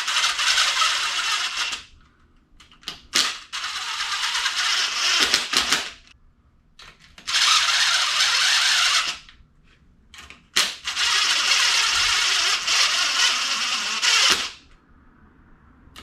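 Impact gun running cylinder-head bolts down into a Subaru boxer engine's block, in four bursts of roughly two to four seconds with short pauses between. The bolts are only being run in and seated, not tightened, ahead of torquing to spec.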